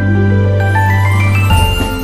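Background music: a melody of stepping, sustained notes over a held bass tone, with a beat of low strikes coming in about a second and a half in.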